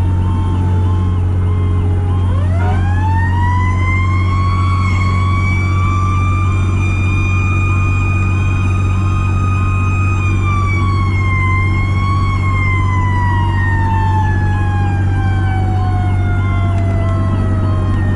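Federal Q mechanical siren on a 2003 Pierce Dash fire truck. It winds down at first, spins back up to a high, steady wail about two seconds in, and coasts slowly down in pitch from about ten seconds in. Underneath are the steady drone of the truck's engine and road noise, and a faint, quickly repeating pulsed tone.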